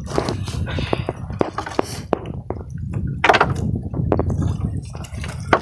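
Wet fishing net hauled by hand over the side of a small boat: irregular knocks and clicks against the hull, with water splashing and dripping, over a steady low rumble.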